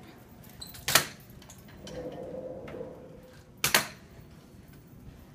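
Aluminium front-wheeled walker knocking down on a hard tiled floor as it is lifted and set down during a step. Two sharp knocks, about three seconds apart.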